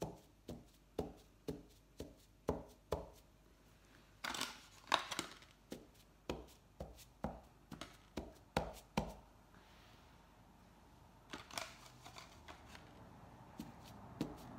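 A halved potato dabbed repeatedly onto a painted cotton tote bag for printing: soft taps about two a second, with a pause of a second or two about two-thirds of the way through before the taps resume.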